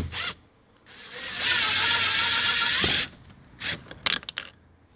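Small power driver spinning an 8mm socket on an extension for about two seconds, backing out the bolt behind the inside door handle, then stopping abruptly. A few light clicks follow.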